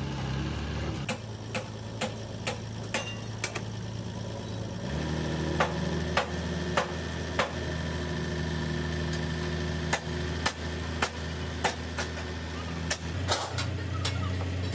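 A truck-mounted crane's engine running steadily, stepping up in speed about five seconds in as the lift gets under way. Over it, sharp metal hammer blows come in runs of about two a second.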